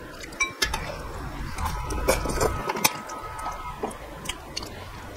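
Close-miked eating with the hands: wet squishing and smacking as fingers work fried fish in curry and carry it to the mouth, with scattered sharp clicks and light clinks against a steel plate.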